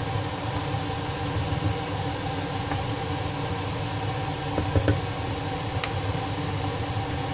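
A wooden spatula stirs biryani rice in a pot, knocking lightly against the pot a few times about four and a half to six seconds in. Underneath runs a steady mechanical hum with several even tones.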